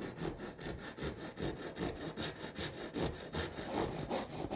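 Fine-toothed pull saw cutting a notch into a PVC trim board by hand, in quick, even strokes of about five a second.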